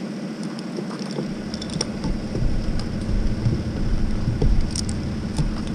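Steady engine hum from machinery running in the background, with wind buffeting the microphone from about a second in and a few light clicks.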